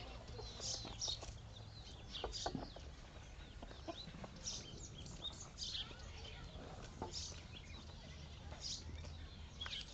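Faint rural ambience: chickens clucking, with scattered short, high bird chirps.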